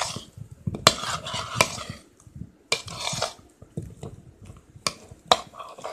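A spoon stirring and scraping pieces of boiled elephant foot yam in a thick spice-and-flour coating around a ceramic plate, with irregular clinks of spoon against plate.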